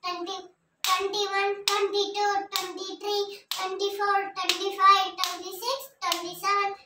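A young boy's voice chanting numbers one after another in a sing-song recitation, a new number about every second, with a short pause about half a second in.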